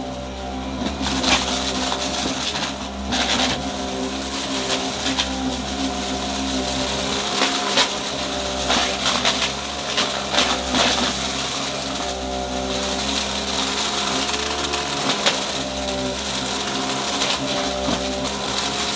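Upright vacuum cleaner running steadily, its motor humming under a rush of airflow, with frequent sharp clicks and crackles of crunchy debris being sucked up through the brushroll.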